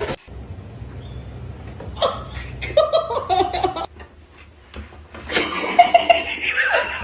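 Human laughter in two bouts: one starting about two seconds in, and a louder one from about five seconds in.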